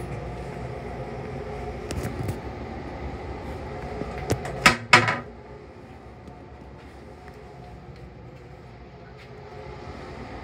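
Plastic toilet lid flipped up, clattering in a few sharp knocks against the stainless-steel toilet compartment about halfway through, over the steady low rumble of the M3 railcar.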